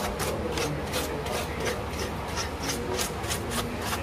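Bristle paintbrush sweeping dust out of an opened laptop case, in quick even strokes about four a second.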